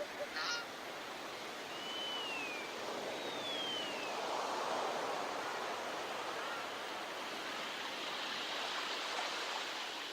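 Surf washing on a beach, a steady hiss that swells about four seconds in as a wave comes through. Two short whistled bird calls sound over it a couple of seconds in, the first rising then falling, the second falling.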